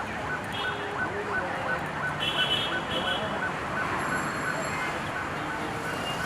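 Heavy road traffic in a jam: a steady din of engines with horns honking around two to three seconds in, and a rapid electronic beeping, about three beeps a second, repeating throughout.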